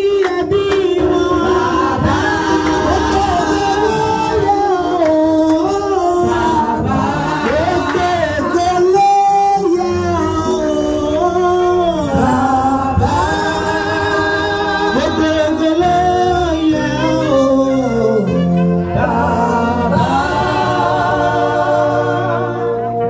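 A group of voices singing a gospel song together.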